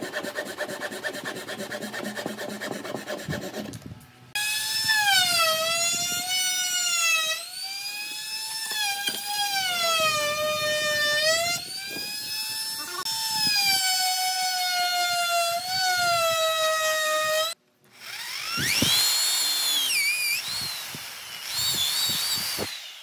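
A hand saw cutting through wood in quick back-and-forth strokes for about four seconds. Then a handheld trim router runs, its high motor whine dipping and rising in pitch as it cuts the edge of the wood, for about thirteen seconds. After a short break an electric drill spins up with a rising whine and bores into the wood.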